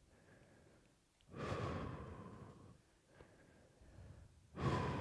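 A person's slow, deep breaths picked up close on a headset microphone: two long breaths about three seconds apart, each starting strong and tailing off, as controlled breathing through a stretch.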